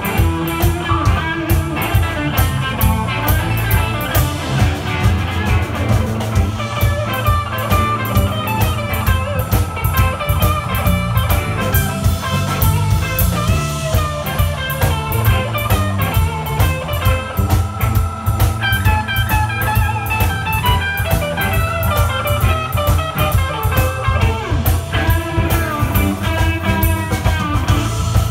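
Live blues-rock band playing an instrumental passage: electric guitar playing melodic lines with some long held notes, over bass guitar and a steady drum-kit beat.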